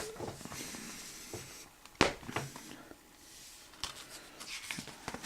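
Plastic Blu-ray case being handled and opened: quiet rubbing and rustling with a few sharp clicks, the loudest about two seconds in.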